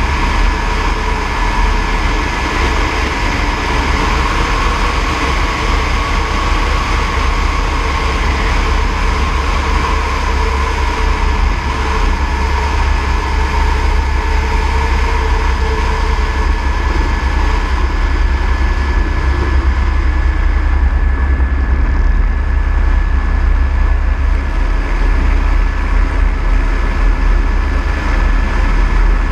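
Airbus AS350 B3e helicopter in flight, its single turboshaft engine and rotor running steadily. A constant high whine sits over a heavy, deep rumble.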